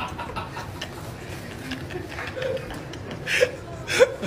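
Men chuckling and snickering quietly over a steady background hum, with a couple of short laughs in the last second or so.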